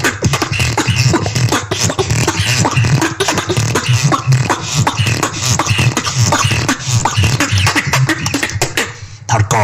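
Solo beatboxing: fast mouth-made snares and clicks over deep pulsing bass notes in a steady rhythm, with a brief break near the end before it picks up again.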